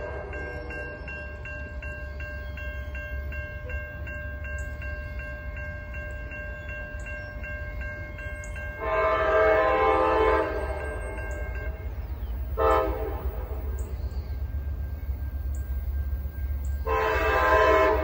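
Railroad crossing bell ringing steadily as the gates come down, falling silent about nine seconds in. An approaching train's air horn then sounds the crossing signal: a long blast, a short one, and another long blast near the end.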